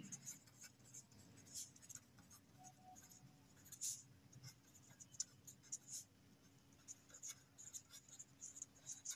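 Faint scratching of a pen writing on paper in short, irregular strokes, over a low steady room hum.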